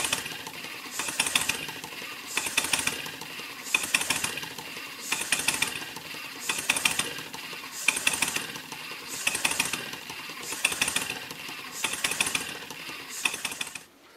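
Chiltern model steam engine running with its flyball governor hunting: the rapid ticking and steam hiss surge and ease in a steady rhythm about every second and a half, as the engine's speed oscillates out of control.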